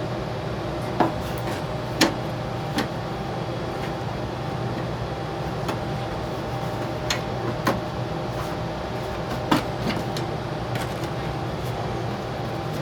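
Scattered sharp clicks and knocks of tools and parts being handled on a small-engine snowblower, about a dozen at uneven intervals, over a steady low background hum.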